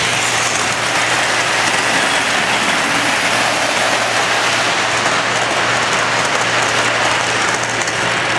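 O gauge model freight train rolling past on metal track: a steady rushing rattle of the wheels on the rails, with a low steady hum underneath.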